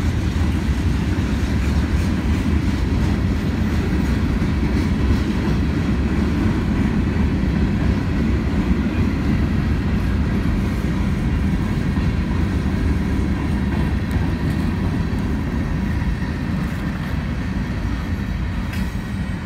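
Freight train cars rolling past: a steady low rumble of covered hoppers and tank cars on the rails, easing slightly near the end.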